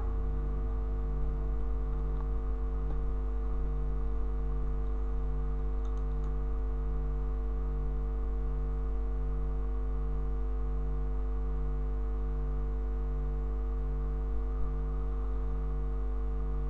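Steady electrical hum, with a low tone in it that pulses slowly and evenly, and a couple of faint clicks about six seconds in.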